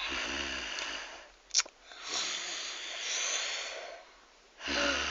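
A person snoring: three long, noisy breaths, the first and last opening with a low flutter. A sharp click about one and a half seconds in.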